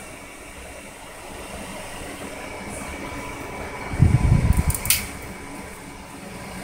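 Steady hum of a 3D printer's fan, with faint steady whine tones. About four seconds in, a louder low rumble and thumping lasts about a second and ends in a couple of sharp clicks.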